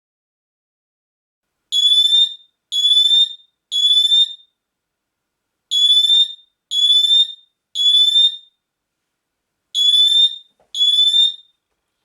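JO-EL Mini Design (Cavius) smoke alarm sounding: loud, high-pitched beeps about half a second long, in groups of three separated by a pause of about a second, the standard three-beep evacuation pattern. Eight beeps in all: two groups of three, then two more.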